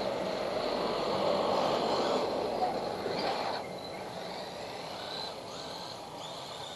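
WLtoys A959 1/18-scale RC buggy driving, its 390 brushed electric motor and drivetrain giving a steady whirring run of noise. It is louder for about the first three and a half seconds, then fainter.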